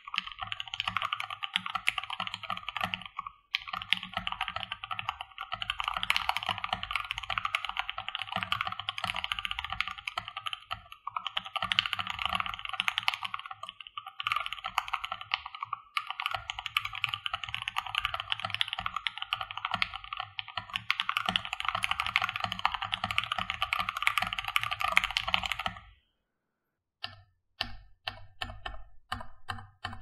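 Keychron K2 mechanical keyboard with lubed, filmed Gateron Yellow linear switches and PBT keycaps, typed on fast, giving a dense, continuous run of keystrokes with a few brief pauses. Near the end it stops for about a second, then comes a handful of single key presses.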